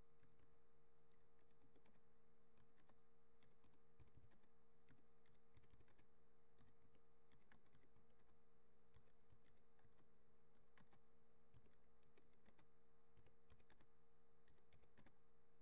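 Faint typing on a computer keyboard: irregular key clicks at a hurried pace, over a steady low electrical hum.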